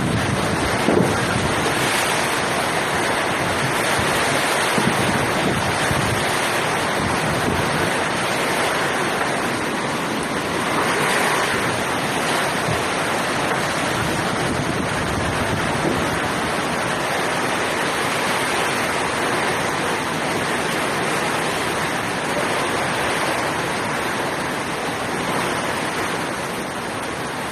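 Steady rush of heavy typhoon rain and wind, with wind buffeting the microphone.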